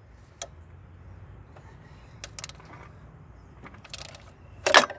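Wrench on the alternator's rear mounting bolt: scattered metallic clicks and clinks as the bolt is worked loose, with a louder clatter of metal near the end.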